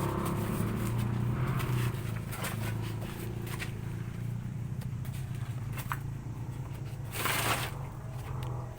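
Scattered clicks and scrapes of parts and tools being handled during engine fitting work, over a steady low hum, with a short hiss about seven seconds in.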